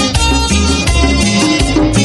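Ecuadorian cumbia music playing loudly, with a steady, regular bass-and-drum beat under a melodic line.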